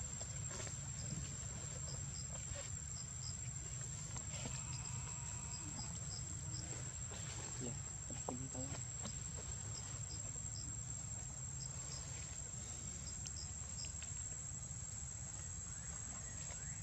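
Insects calling: a steady high-pitched drone with short, high chirps repeating over it, above a low, steady rumble.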